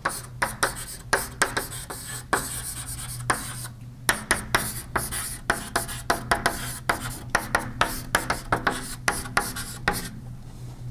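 Chalk writing on a blackboard: rapid, irregular taps and short scraping strokes, sparser in the first few seconds and denser from about four seconds in.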